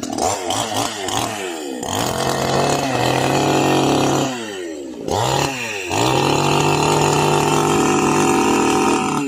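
Two-stroke petrol chainsaw engine being revved: quick throttle blips at first, then held at high revs twice, about two seconds in and again about six seconds in, dropping back toward idle in between.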